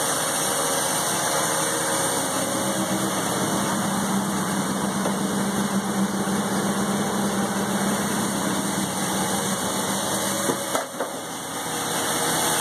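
1984 Mazda RX-7's 12A two-rotor rotary engine idling steadily on choke shortly after a cold start, dipping briefly in level about 11 seconds in.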